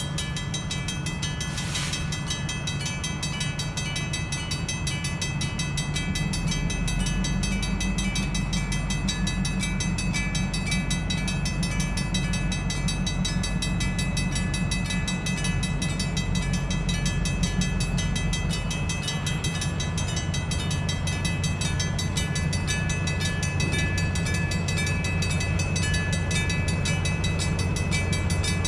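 Diesel locomotive engine rumbling as the cab unit approaches slowly, growing louder about six seconds in, with a steady high whine above it. A brief click sounds near the start.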